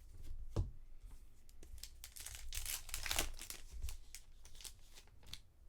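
A trading-card pack's foil wrapper being torn open and crinkled, with a few sharp clicks of cards being handled; the crinkling is densest about two to three seconds in.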